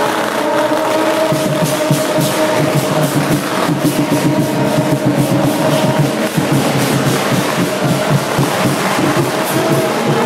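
Temple procession band playing: drums beating steadily under long held brass horn notes, which stop about six seconds in. The crowd is loud throughout.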